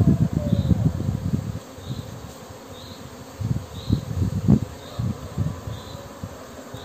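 Honeybee swarm buzzing, over low rustling and bumping from handling among the branches that is loudest at the start and again around the middle.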